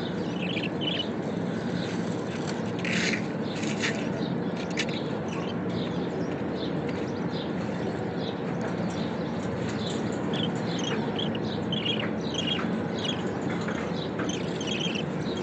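Budgerigars chirping softly, short scattered chirps throughout, over a steady low hum.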